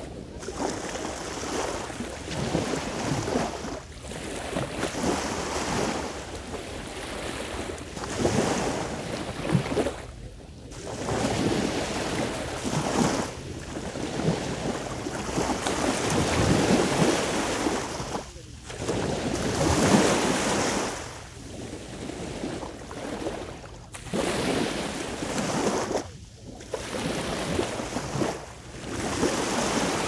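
Sea waves washing onto the shore, the noise swelling and ebbing every few seconds, with wind buffeting the microphone.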